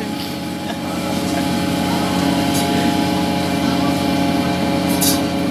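Steady machinery drone aboard a longline fishing vessel, with a brief hiss about five seconds in.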